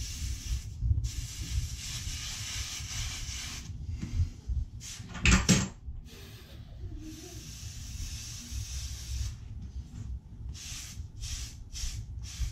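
Cloth rag rubbing over a copper water pipe stub and the surrounding tile, heard as hissing strokes that come in short, separate wipes later on. One louder knock about five seconds in.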